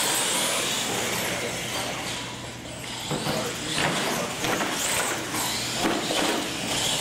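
Two R/C monster trucks launching off the start line and racing across a concrete floor: a high hissing whine of the motors and tyres that starts suddenly, dips briefly and swells again about three seconds in.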